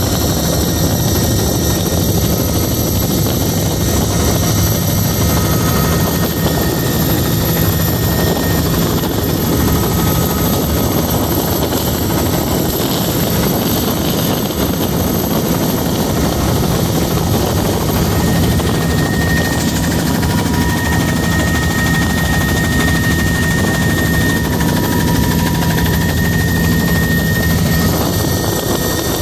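Helicopter in flight, heard from inside the cabin: the engine and rotor make a steady, loud drone with a low hum that holds unchanged.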